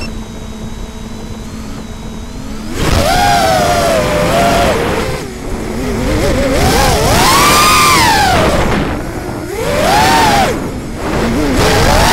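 Armattan Chameleon FPV quadcopter's brushless motors and propellers, picked up by its onboard RunCam Split: a steady low hum at first, then about three seconds in the throttle comes up and a loud buzzing whine sets in, swooping up and down in pitch as the quad takes off and flies.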